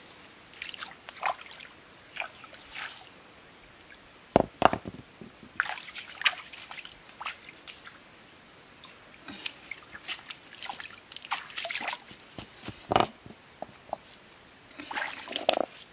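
Shallow stream water splashing and sloshing in short, irregular bursts as hands grope under the stones and feet wade through it. The loudest splashes come about four and a half seconds in, again near thirteen seconds, and in a cluster near the end.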